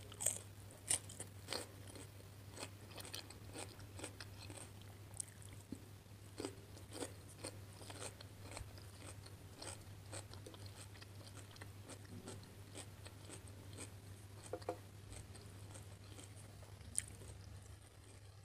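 Close-miked bite into a crisp cucumber slice, then chewing with many sharp, wet crunches. The crunches come thick at first and thin out after about ten seconds, over a steady low hum.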